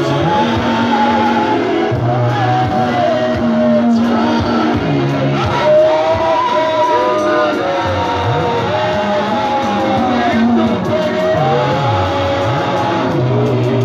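A man singing through a microphone over amplified live music, with held bass notes under the melody.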